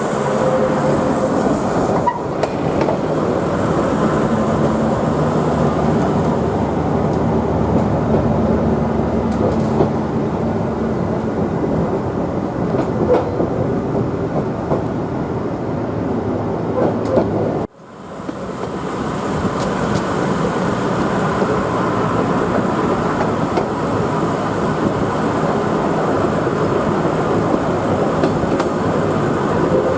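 QR 2000 class diesel rail motor running, its engine drone mixed with wheels clicking over rail joints. The sound cuts out abruptly about two-thirds of the way through, then builds back up.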